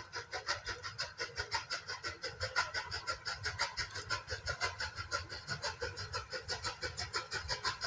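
Steam locomotive working hard as it leaves a tunnel: a rapid, even chuff of exhaust beats, several a second, growing louder as the engine draws nearer.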